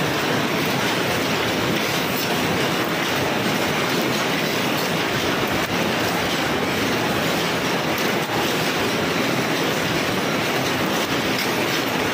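Old paper cup forming machine running, a steady mechanical clatter from its indexing turret and drive.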